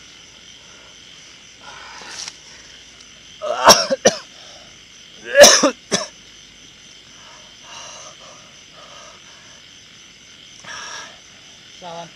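A person coughing hard twice, about two seconds apart, each a short cluster of loud hacks. A steady high chirring of night insects runs underneath.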